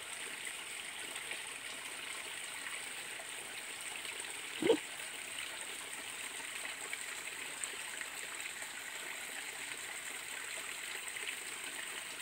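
Small creek running steadily over rocks, with one short, low sound about five seconds in.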